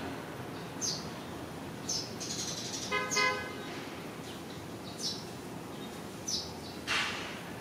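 A small bird chirping outdoors: short, high, falling chirps about once a second over a steady background hum of traffic. About three seconds in there is a brief vehicle horn toot, and near the end a short burst of noise.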